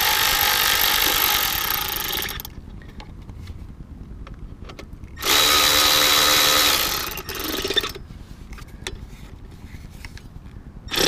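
Power driver spinning a 4 mm Allen-head socket to snug up the small bolts of a motorcycle regulator guard, in two runs of a few seconds each. The second run winds down in pitch as it stops.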